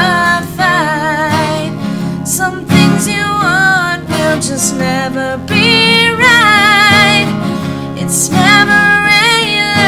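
A song: a voice singing with vibrato over strummed acoustic guitar.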